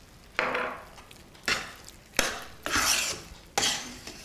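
Spatula stirring and scraping thick, cooked grated-carrot halwa in a pan. There are five separate strokes, each starting sharply and trailing off, as cardamom powder is mixed in with the heat off.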